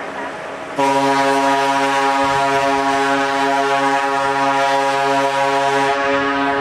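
Cruise ship's horn sounding a long, steady blast. A deeper tone comes in about a second in, making it suddenly louder, and drops out near the end while the higher note keeps sounding.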